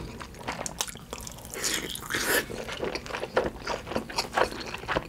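Close-miked chewing: wet mouth clicks and smacks as a man chews a mouthful and bites into a thick slab of pan-fried Spam, with a longer, louder stretch of noise about two seconds in.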